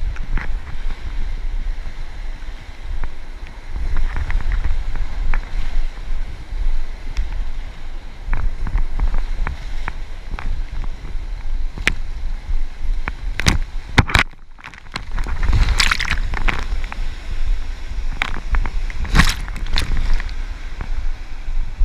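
River water sloshing and splashing around an inflatable kayak, with sharp splashes at intervals and two louder splashy bursts in the second half, over a low rumble of wind on the microphone.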